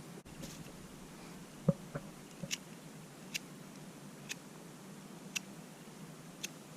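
Zippo emergency fire kit's flint-wheel sparker being struck again and again, short sharp scratchy rasps about once a second, throwing sparks to light petroleum-jelly-coated dryer lint. A few dull knocks come near the start, the first of them the loudest sound.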